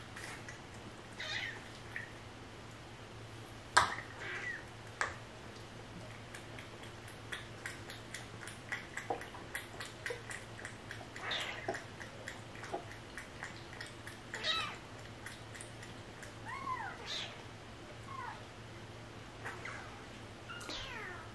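Cats eating from a bowl with small wet lapping clicks, while kittens mew in short high calls several times, most often near the end. One sharp click stands out about four seconds in.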